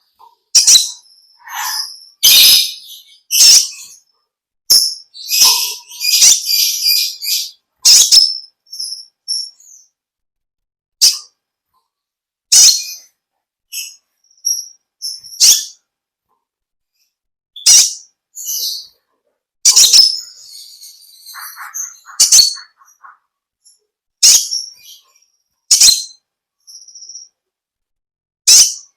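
Kolibri ninja (sunbird) singing: loud, sharp, high chirps and short rapid chattering phrases, separated by irregular pauses of one to three seconds, with longer chattering runs near the start and about two-thirds of the way through.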